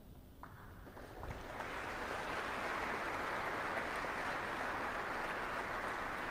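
Audience applauding. A few scattered claps come about half a second in, then the applause swells into a steady round by about two seconds in.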